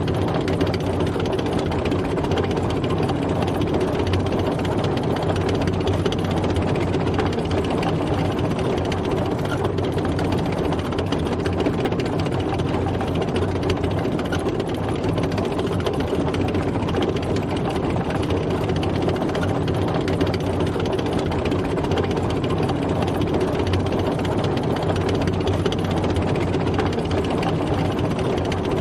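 Tank on the move: its engine running steadily under a dense, fast, even mechanical clatter.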